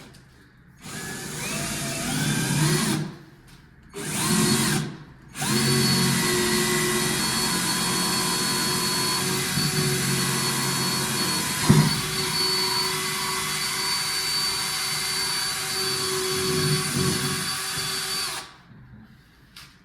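Electric drill boring a hole through a door for a lock. Two short runs spin up at the start, then one long steady run of about thirteen seconds stops near the end, with a sharp click partway through.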